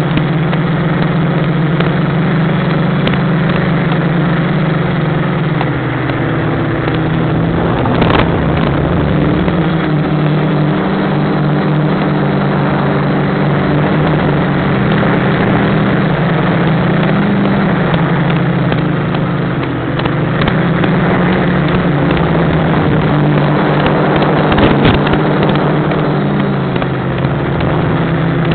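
Electric motors and propellers of a Deadcat quadcopter heard from on board in flight: a steady buzzing hum that drifts up and down in pitch as the throttle changes, under a constant hiss.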